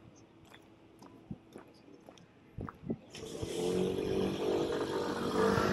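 City street sounds on a sidewalk: faint scattered footsteps, then about three seconds in the sound gets much louder, with a steady pitched tone over a hiss.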